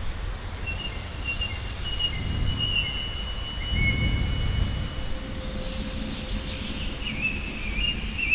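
Wind blowing in gusts that swell and fade every couple of seconds, with birds whistling thin high notes. About five seconds in, a rapid high chirping, four or five chirps a second, joins in.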